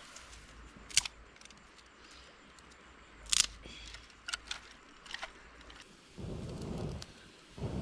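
Dry twigs and grass stalks being snapped and handled over a pile of bamboo sticks: a few sharp cracks, the loudest about three seconds in. In the last second or two a low rumbling noise comes in.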